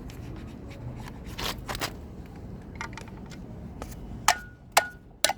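Hands and a tool working at an AC compressor's terminal cover: scattered sharp metallic clicks and knocks, with three loud ones close together near the end, one followed by a brief ring.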